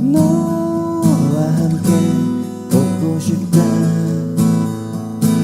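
Acoustic guitar strummed in a steady rhythm, playing the chord accompaniment of a pop ballad in a passage between sung lines.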